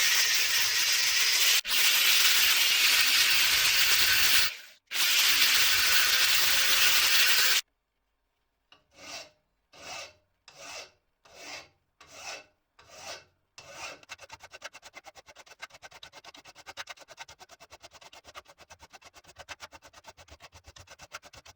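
A power tool runs loudly and steadily for the first seven or so seconds, dropping out briefly around the middle. Then a small wooden wedge is worked by hand: about seven slow rasping strokes, followed by quick back-and-forth rubbing strokes, as with a rasp or sandpaper on wood.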